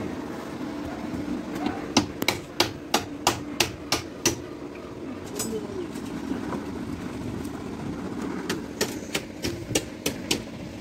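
Hammer driving nails into wooden concrete shuttering boards. A quick run of about eight sharp strikes, roughly three a second, comes first; after a pause there is a second run of about seven.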